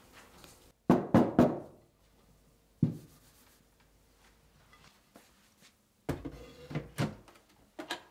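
Rice cooker inner pot full of castella batter knocked against the counter three times in quick succession, then once more. Near the end come a run of clunks and knocks as the pot is handled.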